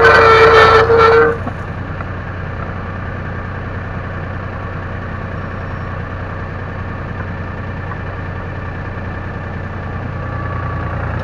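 1969 David Brown 780's three-cylinder diesel working hard under load pulling a two-furrow plough through the soil, with a loud whining tone, then about a second in the load comes off and the engine drops suddenly to a steady idle. Near the end the revs begin to rise again.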